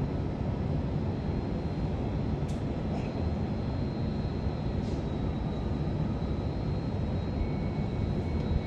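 Steady low background rumble with no speech, and a faint high whine. A few faint clicks come about two and a half, three and five seconds in.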